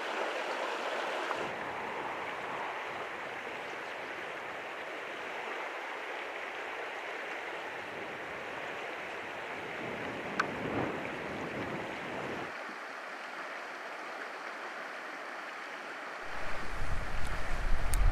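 Shallow mountain creek running over stones and riffles, a steady rush of water. Near the end, wind buffets the microphone with a loud, fluttering rumble.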